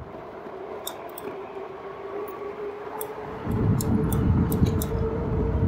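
RadMini electric bike's hub motor whining under power in one steady tone that rises slightly in pitch as the bike picks up speed, with scattered light ticks. A low rumble comes in about halfway through.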